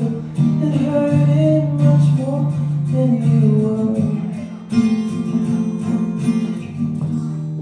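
Acoustic guitar strumming the closing chords of a song, with a wordless sung line over the first part, ending on a final chord left to ring and slowly die away.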